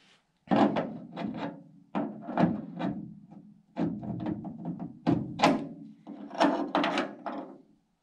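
Clunks and metallic clicks as a chrome door handle is worked onto its shaft against a 1952 Ford F1's steel door and its spring-loaded escutcheon. The knocks come in about five quick clusters.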